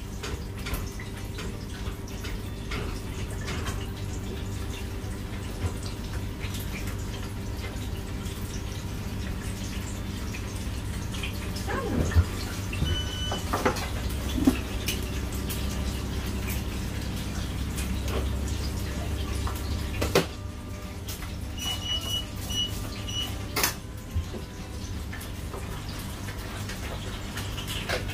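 Busy small-kitchen noise: a steady low hum of kitchen equipment, with scattered clicks and clatter of utensils and takeaway boxes. There is a short electronic beep about halfway through and three quick beeps about two-thirds in.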